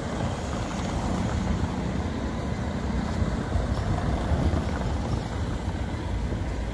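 Street traffic: cars rolling slowly past on cobblestones, a steady low rumble of tyres and engines.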